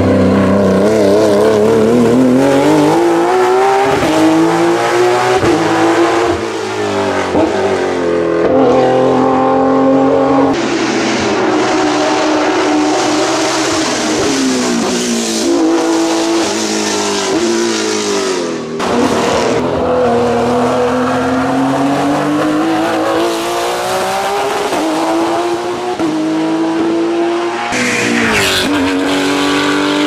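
Porsche 991.2 GT3 Cup's 4.0-litre flat-six race engine at full throttle. Its pitch climbs again and again under acceleration and drops sharply at each gear change or lift as the car passes.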